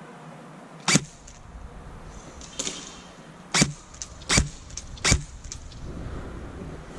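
Airsoft guns firing single shots: about five sharp cracks at irregular intervals over several seconds.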